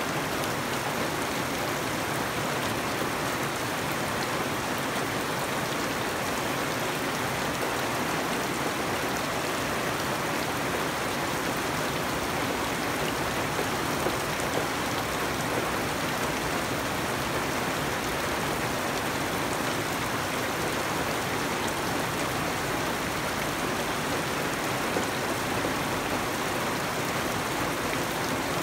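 Steady rain falling on garden foliage and bare ground, an even hiss that holds level throughout, with two brief louder taps about halfway through and near the end.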